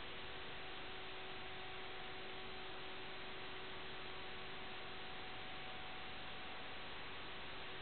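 Steady electronic hiss with a faint, unchanging hum, typical of the audio channel of an analog FPV video link carrying no live sound.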